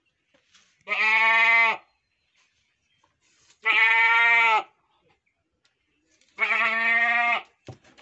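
A buck goat bleating three times, each call about a second long with a slight fall in pitch at its end, about three seconds apart. A brief knock near the end.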